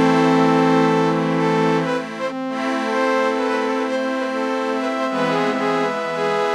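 Slow accordion music: held chords that change every two to three seconds, the notes wavering slightly.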